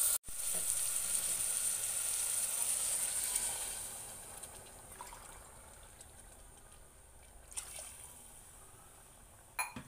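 Water poured from a glass into a pressure cooker over rice and masala, running for about three seconds and then dying away. A few faint light knocks follow near the end.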